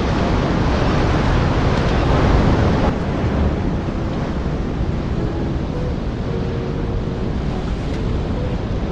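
Surf washing and breaking against jetty rocks, with wind buffeting the microphone. The rush is a little louder for the first three seconds, then settles to a steady wash.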